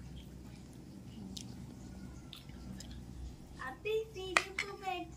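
Quiet chewing and faint clicks of a steel spoon on a plate. About four seconds in comes a high-pitched, wavering vocal sound lasting around a second and a half, with a single sharp click in the middle of it.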